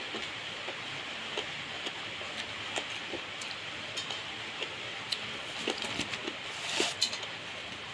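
Steady hiss of rain falling, with scattered soft clicks and taps through it and a brief rustle near the end.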